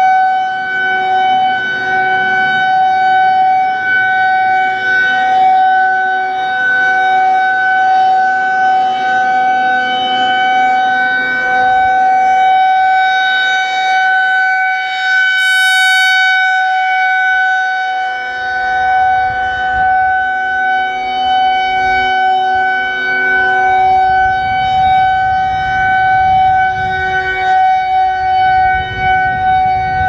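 Federal Signal 2001-130 rotating outdoor warning siren sounding the steady alert signal of a monthly test: one loud, unbroken tone that swells and fades a little as the horn turns.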